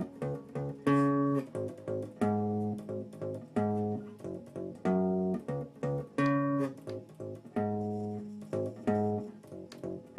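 Background music: a plucked guitar playing a slow, repeating pattern. A strong ringing note sounds about every second and a quarter, each one dying away, with softer notes in between.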